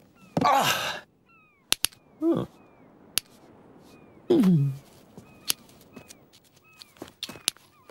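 Cartoon soundtrack of a character's wordless vocal exclamations, one a downward-sliding groan, over scattered sharp clicks. Faint short chirps repeat in the background about twice a second.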